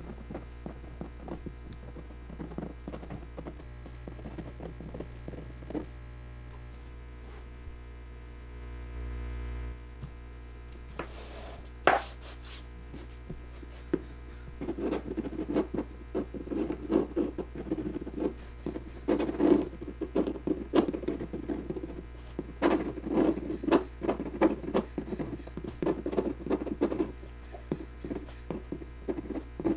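Fountain pen nib scratching across Bristol paper in many short, quick strokes as small figures are sketched, sparse at first and busier and louder from about halfway, with one sharp click near the middle.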